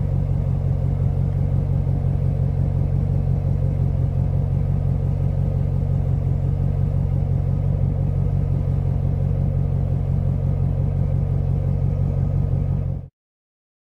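1995 Corvette's LT1 V8 idling steadily through Magnaflow mufflers with the resonator deleted (X-pipe), a deep exhaust note heard from behind the car. It cuts off suddenly near the end.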